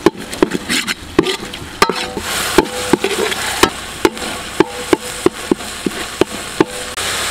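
A spatula scrapes and knocks against a large metal pan, about a dozen irregular strokes that each ring briefly, stopping near the end. Under it, ground green-chilli masala paste sizzles as it fries in oil.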